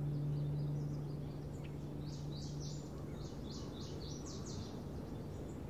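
Birds chirping in a quick series of short, high calls over a steady rushing background noise. A held low musical note fades out about halfway through.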